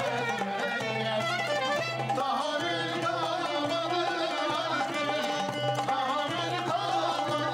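Turkish fasıl music performed live: a singer with a small traditional ensemble, melodic instruments over a hand drum.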